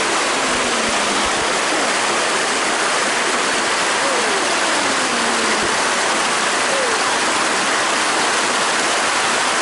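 Creek water running over rocks in small rapids: a steady, even rush of flowing water.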